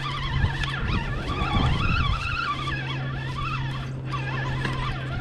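Spinning reel cranked steadily to bring in a hooked striped bass, a whirring whine that wavers with each turn of the handle, over a steady low hum, with a brief low rumble near the middle.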